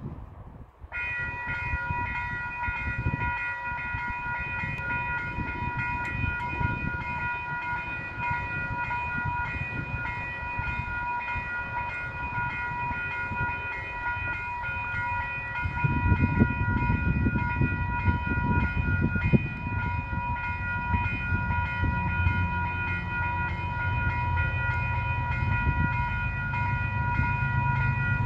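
Railway level-crossing warning bells switch on about a second in and keep ringing steadily. Under them a low rumble grows louder from about halfway, and near the end the engine hum of an approaching DX-class diesel locomotive (a GE U26C with a V12 engine) builds up.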